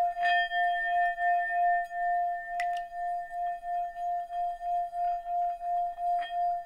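Intro sound: one long, held ringing tone that wavers in loudness about three times a second, with three light chime-like strikes near the start, in the middle and near the end.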